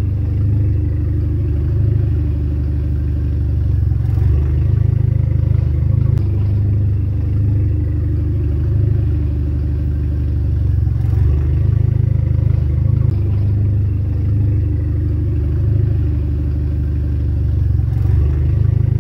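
A machine running steadily close to the microphone: a loud, even low hum that starts abruptly just before and keeps on without a break.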